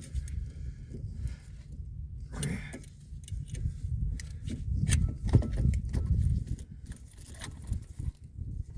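Irregular metallic clicks and clinks from a caliper piston compression tool being worked against a 2012 Subaru Impreza's rear brake caliper piston, which is stiff and will not go back easily. A brief vocal sound comes about two and a half seconds in.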